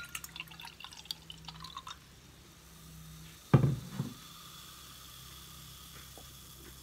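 Homemade naturally fermented lemonade being poured into a wine glass, crackling with tiny popping bubbles for the first couple of seconds as the foam rises. A single loud knock about three and a half seconds in, with a softer one just after.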